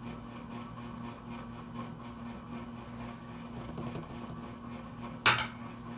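Quiet room tone with a steady low electrical hum. A single sharp tap or knock comes about five seconds in.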